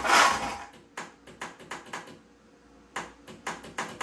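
A riding mower's electric starter whirs briefly and dies away, then clicks, a few scattered at first and from about three seconds in a steady run of about four or five a second, without the engine turning over or catching: the owner fears the starter has failed.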